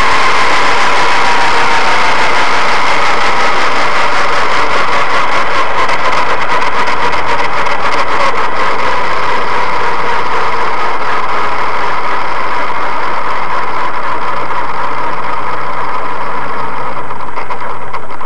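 Align T-Rex 500 ESP electric RC helicopter's motor and rotor running while it sits on the ground, heard loud through its onboard camera's microphone: a steady whine over rushing noise. The whine dips slightly in pitch at the start, and the high rushing thins out near the end.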